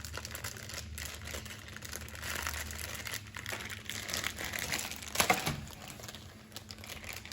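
Doll packaging crinkling and rustling as it is torn open and unwrapped by hand, with a louder crackle about five seconds in.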